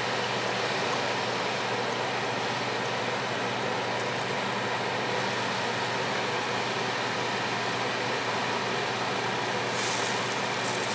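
A steady mechanical hum and hiss throughout. A little before ten seconds in, a short scraping rustle as a plastic spatula slides under a pancake in a nonstick frying pan to flip it.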